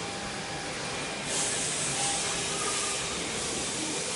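Factory workshop background noise: a steady hiss with no clear single source, growing louder about a second in.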